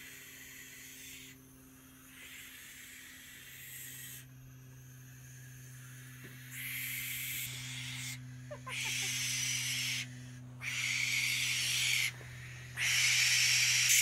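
Young barn owls hissing: a run of harsh hisses, each a second or so long, starting faint and getting louder over the second half.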